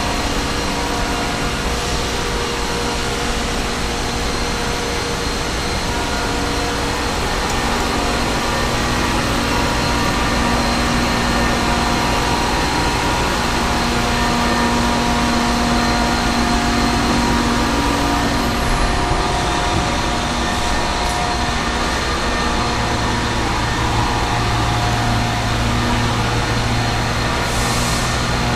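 Steady machine-shop drone: machinery running with several steady hum tones layered over a constant rush. A lower hum comes in a little past the middle.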